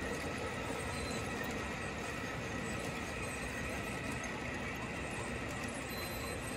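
G scale model coal train of hopper cars rolling along curved track, a steady clatter of many wheels on the rails with a thin high squeal running under it.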